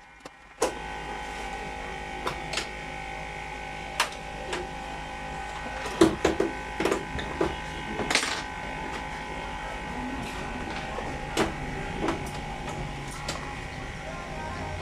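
Scattered sharp clicks and knocks of hard plastic being handled, over a steady machine hum that starts abruptly under a second in.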